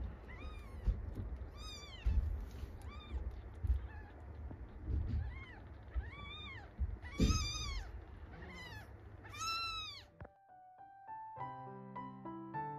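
Four-day-old kittens mewing: a run of short, high calls, each rising then falling, about one or two a second, over low rustling and bumps. About ten seconds in, the mewing cuts off and soft piano music begins.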